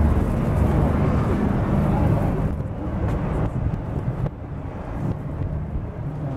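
Steady low outdoor rumble of distant motor traffic mixed with wind on the microphone, easing a little about halfway through.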